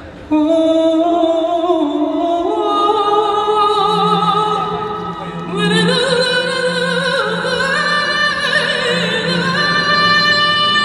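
Operatic-style music comes in suddenly: long held notes with a slight waver step upward in pitch. A deep sustained note joins about four seconds in, and the sound grows fuller and brighter about halfway through.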